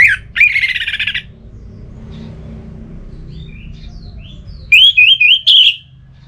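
Orange-headed thrush singing in open, loud 'ngeplong' style: a sharp call and a harsh, buzzy phrase in the first second, then a loud run of quick rising notes about five seconds in. A steady low hum sits underneath.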